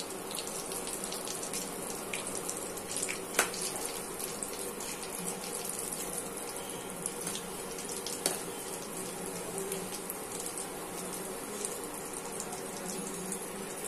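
Coated chicken pieces deep-frying in hot oil in a steel kadai: a steady sizzle with scattered crackles, and a sharp click a little over three seconds in.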